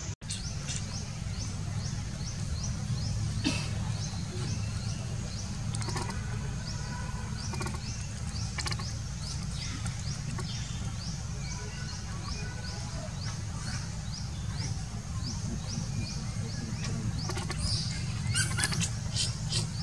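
A short, high-pitched chirp repeating evenly about twice a second, over a steady low rumble, with a few sharp clicks near the end.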